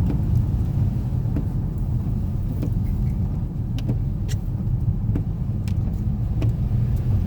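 2013 Nissan Rogue under way, a steady low engine and road rumble with brief high ticks about once a second, at irregular spacing. This is the noise the owner hears in gear just past 2500 rpm and suspects comes from the CVT or a heat shield.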